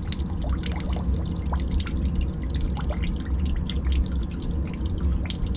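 Dirty washing-machine drain water dripping and trickling at the standpipe, in irregular small drips over a steady low rumble.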